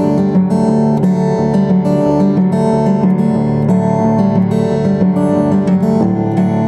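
Background music: acoustic guitar strumming a steady, even accompaniment.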